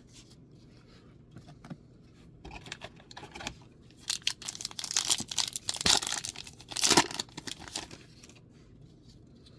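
Magic: The Gathering booster pack wrapper being torn open and crinkled by hand, in scattered crackles at first and then a loud stretch of ripping and crinkling in the middle.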